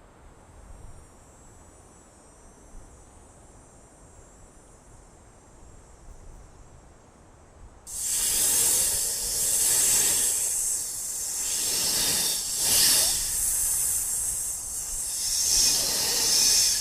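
A faint high hiss, then about eight seconds in a loud rushing hiss starts suddenly and swells and fades in waves, like an added whoosh sound effect.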